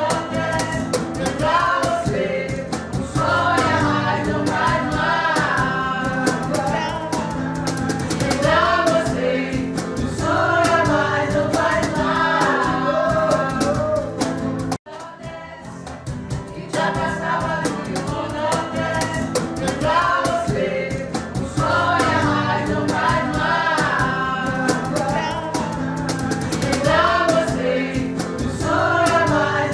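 Music: a song with sung vocals over a steady accompaniment. It cuts out for an instant about fifteen seconds in, then carries on.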